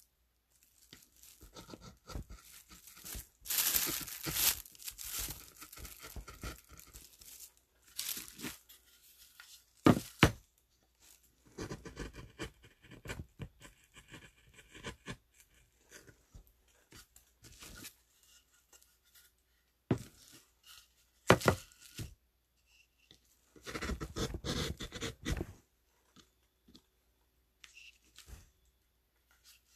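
A sheet of paper rustling and crinkling as it is handled, in irregular bursts with short quiet gaps.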